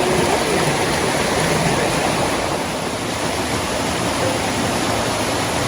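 Small waterfall: water falling and rushing in a steady, even roar.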